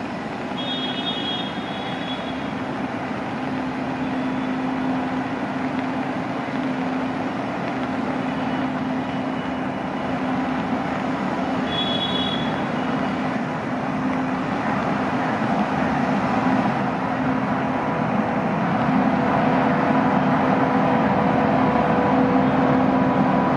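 WAP-7 electric locomotive approaching with its express train, its running noise growing steadily louder as it nears. A steady low hum runs throughout, and a higher hum joins near the end as the locomotive draws level.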